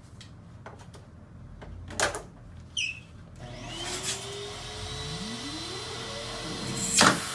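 Central vacuum switched on through its hose: a rush of air and a whine that rises in pitch over a couple of seconds as the motor and turbo spin up, then holds steady. Clicks of handling the attachments come before it, and two loud knocks near the end.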